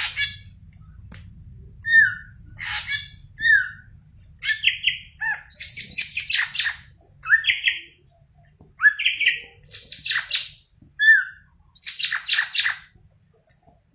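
Green leafbird (cucak ijo) singing: bursts of quick chirps, short sweeping whistles and rapid trills with short pauses between phrases. The bird falls quiet about a second before the end.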